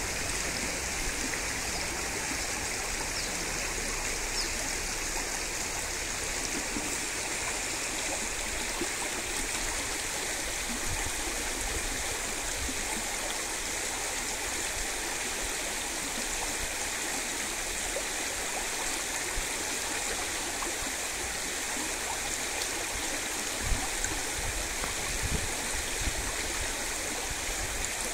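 Shallow stream running over pebbles: a steady, even rush of water, with a couple of brief knocks near the end.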